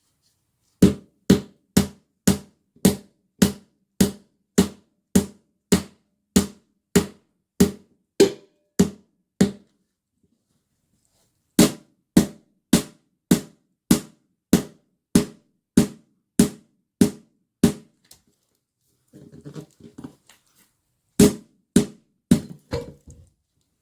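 Repeated hard hammer blows at a steady pace of about one and a half a second, working at the motorcycle's wheel or tyre. They come in two long runs with a short pause between, then a few irregular blows near the end.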